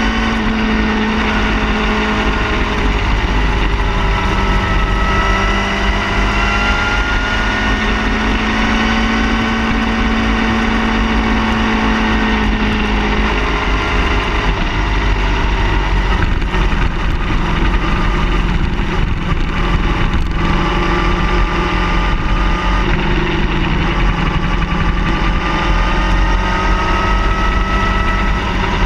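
Car engine running steadily, its pitch drifting slowly up and down over a constant low rumble.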